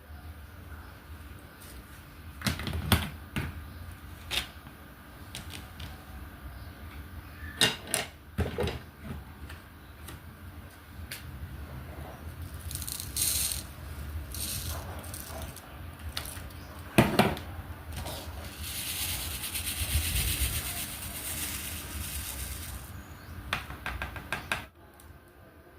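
Diamond painting work: a drill pen tapping and pressing small resin drills onto the canvas, giving irregular sharp clicks and knocks. About two-thirds of the way through, a spell of rattling follows, as of the loose drills being shaken in their plastic tray.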